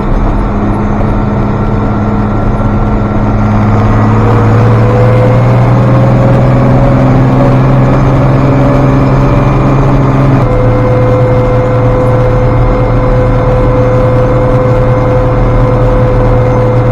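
International 5288 tractor engine running while hauling a load of corn on the road. The engine note climbs gradually for several seconds, changes abruptly about ten seconds in, then holds steady.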